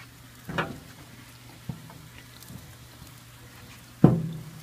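Chicken wings faintly crackling on an open charcoal kettle grill, with a few small pops, broken by two sharp knocks, one about half a second in and a louder one near the end.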